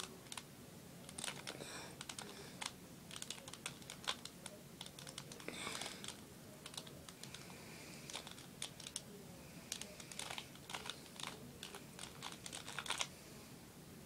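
Rubik's brand 2x2 cube being turned rapidly by hand during a timed solve: a stream of irregular plastic clicks as the layers are twisted, with a brief rustle about six seconds in.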